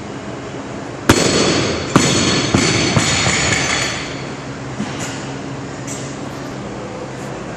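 Loaded Olympic barbell dropped from overhead onto a lifting platform: one loud crash of the bumper plates, then three quicker bounces, with the steel bar and plates ringing and rattling as they settle.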